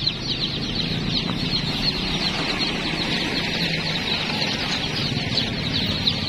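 A crowd of baby chicks peeping nonstop: many high, short, falling cheeps overlapping in a continuous chorus.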